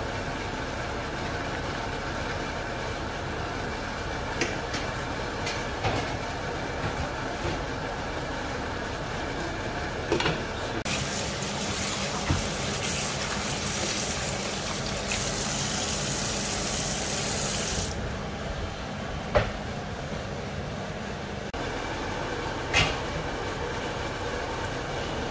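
Kitchen sounds over a steady background noise: tap water runs into a steel sink for about seven seconds in the middle as leafy greens are rinsed by hand, with a few sharp clinks and knocks before and after.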